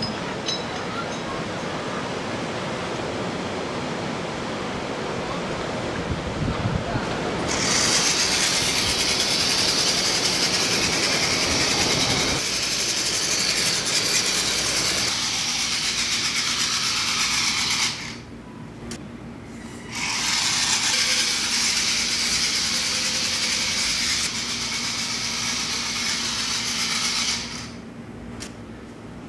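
Surf and wind from the sea at first. After about seven seconds the Vaterra Slickrock RC rock crawler's electric motor and drivetrain give a loud, high whir as it drives. The whir stops for about two seconds, then runs again and cuts off near the end.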